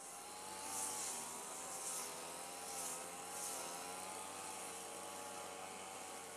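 Faint distant engine drone with a slightly wavering pitch over a low hum. A high hiss swells four times in the first four seconds.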